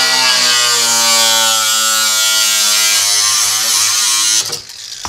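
Angle grinder with a cutoff wheel cutting through sheet steel: a loud, steady high-pitched whine and screech of the wheel under load. The cut stops about four and a half seconds in.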